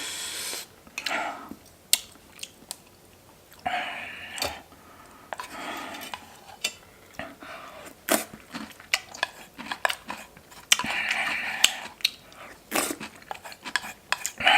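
Close-up eating sounds of a person having pork-bone hangover soup: chewing, with short sharp clicks of utensils against a bowl and a few short noisy stretches.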